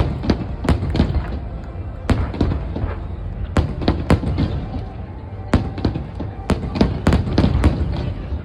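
Fireworks display: sharp bangs and cracks in irregular clusters, several a second at times, over a continuous low rumble, with a short lull about halfway through.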